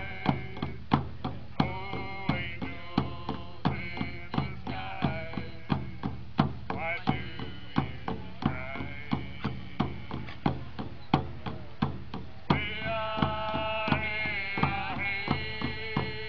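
Native American hand drums, hide frame drums, beaten in a steady even beat of about one and a half strokes a second, under several singing voices. The singing grows louder about twelve and a half seconds in.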